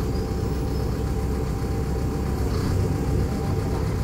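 Diesel engine of a Mercedes-Benz O500U city bus running steadily at low revs as the bus moves slowly.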